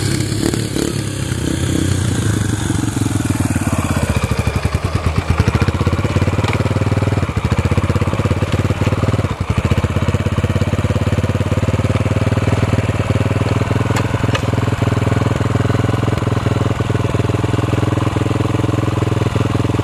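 Yamaha dirt bike engine running close by: its revs shift over the first several seconds, then it settles into a steady idle.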